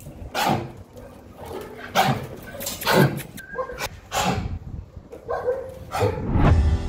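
Dog coughing in a fit: about a dozen short coughs in quick, irregular succession. This is the persistent, choking cough that the owner puts down to a bacterial infection.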